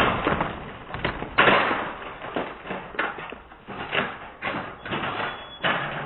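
A glass beer bottle bursting inside a microwave oven: the blast's noise dies away, then a sharp bang comes about a second and a half in. It is followed by a string of irregular knocks and thuds as the oven and debris take the hits.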